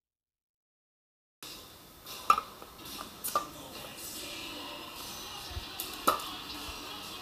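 Mini rice cooker parts clinking against each other as they are unpacked, three sharp ringing knocks. Rustling packaging and a low steady hiss fill the gaps; the sound cuts in suddenly about a second and a half in, after dead silence.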